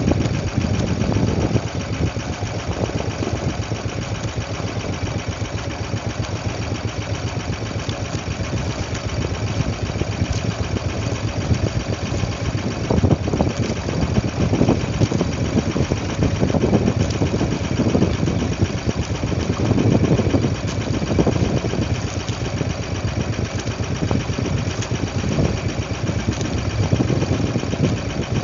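Small outrigger fishing boat's engine running steadily.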